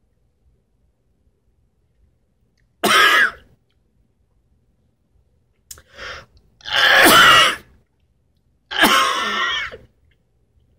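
A man coughing, clearing his throat and groaning in disgust after a mouthful of sauerkraut, in three short outbursts separated by silence.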